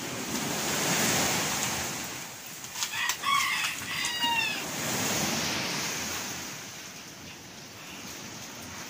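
A rooster crows once, about three seconds in, with a falling tail to its call, over a steady rushing noise of sea surf that swells and fades.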